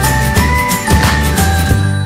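Background music with a steady beat, ending on a held chord that begins to fade out near the end.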